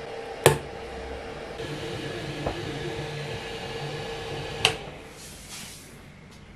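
FLSUN Super Racer delta 3D printer running with a steady fan hum, with a sharp click about half a second in and another a little before five seconds. After the second click the hum fades away as the printer loses power for a power-failure test.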